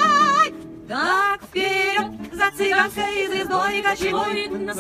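Several voices singing: a held note with vibrato breaks off about half a second in, and the singing starts again about a second in with swooping, sliding notes over a steady low held note.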